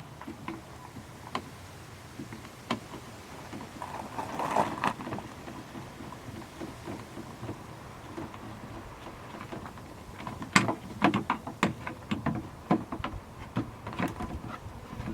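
Scattered clicks and knocks of a bumper turn-signal light being worked into its mount in the front bumper, a struggle to seat it. There is a rustling patch about four seconds in, and a quick run of sharp clicks in the last few seconds.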